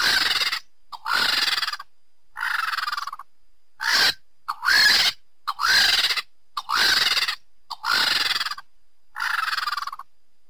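Griffon vulture calling: nine short calls, about one a second, each rising and then falling in pitch.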